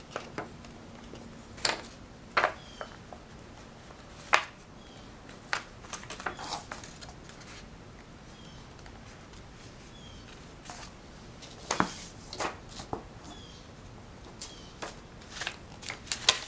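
A glue stick rubbed along the edge of a sheet of craft paper, and the paper handled and pressed flat: scattered soft rustles, scrapes and light taps, busier near the end.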